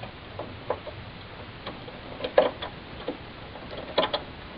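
A desktop RAM stick being fitted into a plastic DIMM socket: light, irregular clicks and taps of the module's edge against the socket and its latches.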